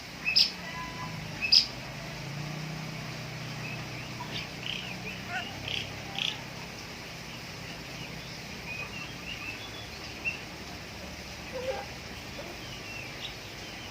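Birds chirping and calling in short, scattered high notes, with two sharp, loud calls near the start, over a faint low hum.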